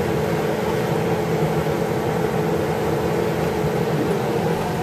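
A steady mechanical whir with an even hiss over it, while chives, shrimp and fried tofu are stir-fried in a wok with a wooden spatula.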